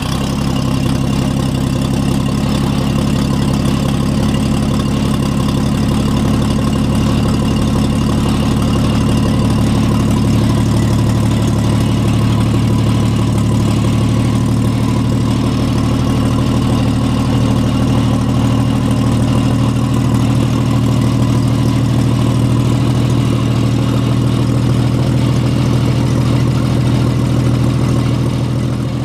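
1954 Chevrolet pickup's inline-six engine idling steadily, with the hood open.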